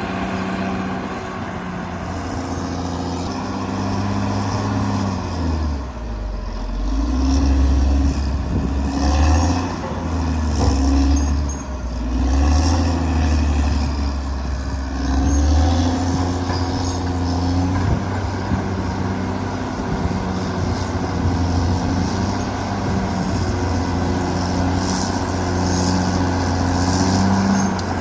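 Caterpillar D6R XL bulldozer's diesel engine working, its note dropping lower and growing louder under load from about a fifth of the way in to just past halfway, then running steadier.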